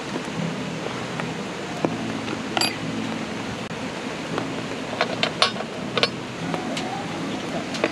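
Aluminium mess tin clinking as it is set down and its lid is handled: a few sharp metallic clicks, most of them in the second half. Under them is a steady hiss.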